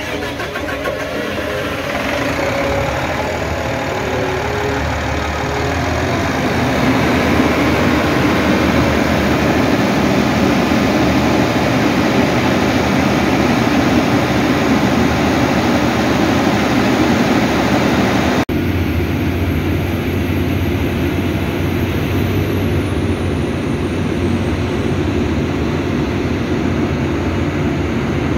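Freshly rebuilt Cummins QSL 8.9 diesel engine starting and running up, then settling into a steady run on its test start after the overhaul. After a sudden cut about two-thirds in, a diesel crane engine runs steadily under load, with a faint high whine that falls in pitch.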